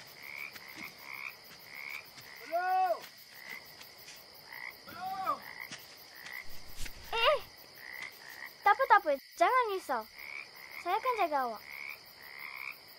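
A night-time frog chorus: short croaks repeat about every half second over a steady high hum. Louder croaks with rising-and-falling pitch stand out about 3, 5 and 7 seconds in, then come in a quick cluster around 9 seconds and again near 11 seconds.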